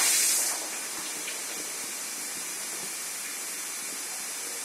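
Air hissing steadily from a hot press (hot air) plastic welding machine, with a louder rush in the first half-second before settling to an even hiss.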